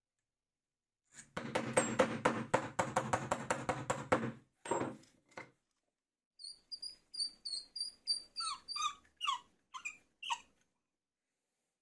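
Threaded steel bolt, nut and washers being worked on a plywood wheel: a quick, dense rattle of clicks for about three seconds, then after a short pause a string of short squeaks, about three a second, that stops near the end.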